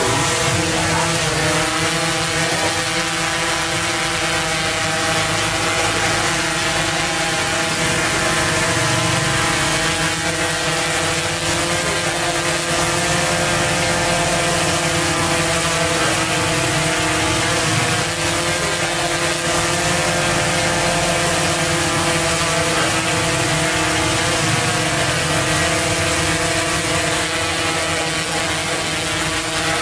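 DJI Inspire 1 Pro quadcopter hovering: its four motors and propellers give a steady, loud buzzing hum of several pitches over a rushing hiss, with the pitch wavering slightly as it holds position.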